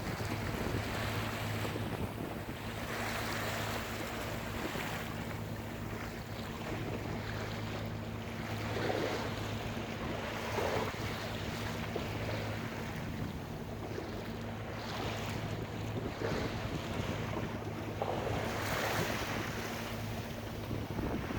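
A boat's engine running with a steady low drone, under water splashing and wind buffeting the microphone, which swell up now and then.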